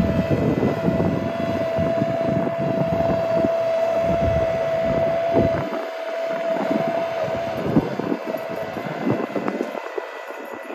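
SwarmFarm autonomous spraying robot running as it drives away towing its sprayer trailer: a steady machine whine that weakens about two-thirds of the way through as the robot moves off, over an uneven low rumble.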